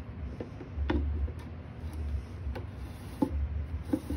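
Metal mesh screen lid of a glass terrarium being slid back onto its frame, with several irregular light clicks and taps as it moves along the track.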